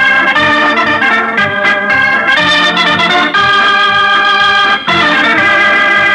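Organ music: a run of sustained chords that change about once a second.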